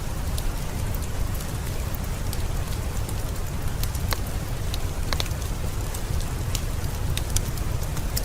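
Steady heavy rain with a deep low rumble, dotted with scattered sharp clicks.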